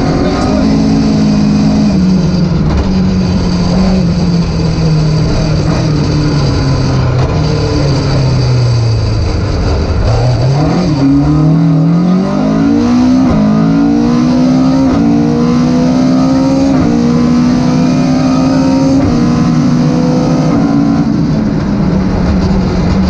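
Rally car engine at stage pace, heard on board. The engine note sinks slowly for about ten seconds, then climbs hard through two quick upshifts and pulls steadily higher before easing off near the end.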